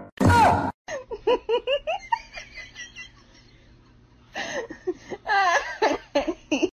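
People laughing and giggling in short quick bursts, with a brief lull in the middle before the laughter picks up again.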